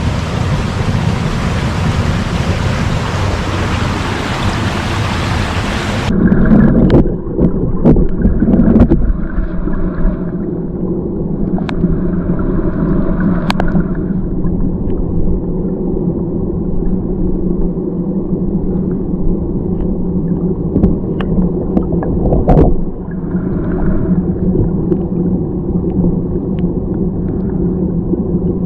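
River water rushing for about six seconds. Then the sound suddenly turns muffled, as heard underwater: low gurgling flow with scattered clicks and knocks.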